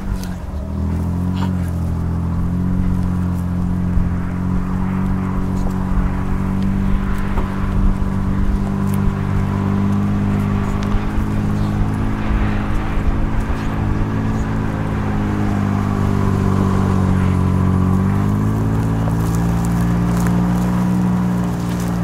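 Vehicle engine running steadily at low speed, its pitch shifting briefly about a second in and again near the end.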